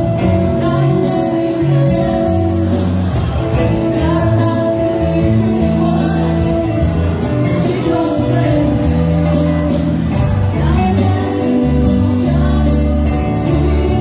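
Live rock band playing with a vocalist: electric guitar, bass, keyboard and drum kit, with a steady beat on the cymbals.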